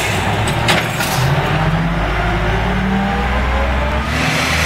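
Automated side-loading garbage truck's diesel engine pulling away from a stop, its pitch rising under load. A short knock comes about a second in, and a hiss starts near the end.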